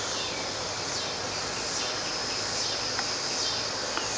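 A steady, high-pitched chorus of insects in the trees.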